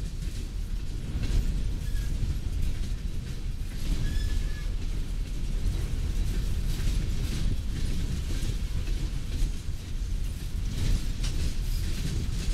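Coal train hopper cars rolling past at close range: a steady low rumble of steel wheels on rail, with scattered clicks and clanks and a brief faint squeal about four seconds in.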